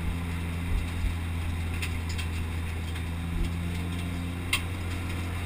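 Mitsubishi Lancer Evolution VI Tommi Mäkinen's turbocharged four-cylinder engine running at steady revs, heard from inside the cabin while the car is driven on track. A single click about four and a half seconds in.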